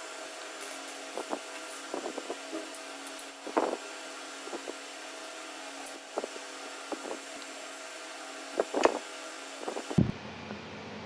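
Small parts being handled and fitted during a toy build: scattered clicks and taps over a steady hum, the loudest about three and a half seconds in and again near nine seconds.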